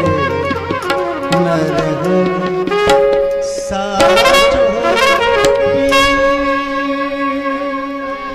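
Instrumental qawwali music: a held, reedy melody over tabla strokes between sung lines, growing quieter toward the end.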